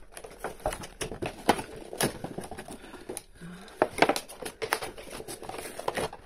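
Cardboard doll box and its plastic packaging being pulled apart by hand: a run of irregular crackles, clicks and crinkles.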